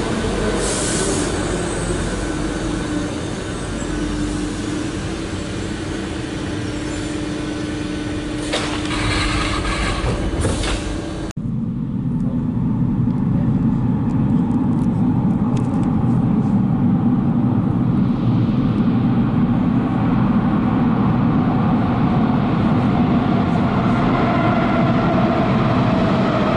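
Athens Metro electric train in the underground station, its motor whine falling in pitch as it slows and then holding steady, with a high hiss for a couple of seconds. After a sudden cut, a low steady rumble with a faint whine comes from the tunnel as the next train approaches.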